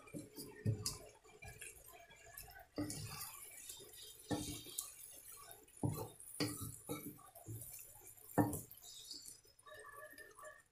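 Vegetables stir-frying in a wok over a faint sizzle, with a spatula scraping and knocking against the pan about seven times at uneven intervals as the food is tossed.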